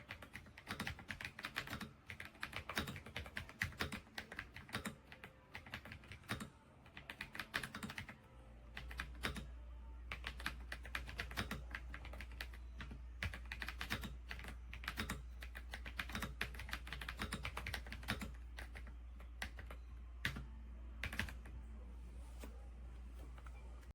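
Typing on a Redragon K668 full-size mechanical keyboard: a fast, irregular run of key clicks. About eight seconds in, a steady low hum sets in underneath.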